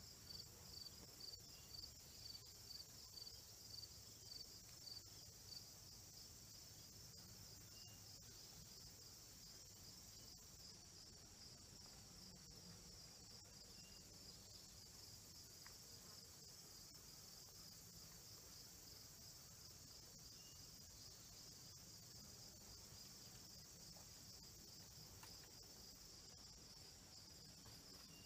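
Faint chorus of field insects: a steady high trill, with a louder pulsed chirp about twice a second for the first five or six seconds.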